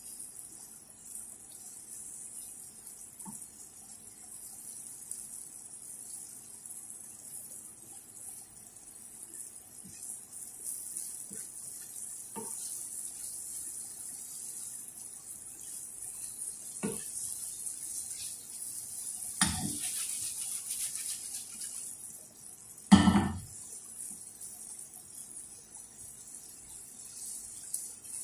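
Shrimp and melting butter sizzling in a frying pan, a steady high hiss, with a wooden spoon knocking against the pan now and then. One knock near the end is much louder than the rest.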